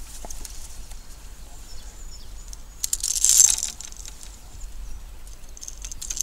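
A hooked northern pike splashing at the water's surface as it is brought to the boat, with one short loud burst of splashing about three seconds in; scattered small clicks before and after.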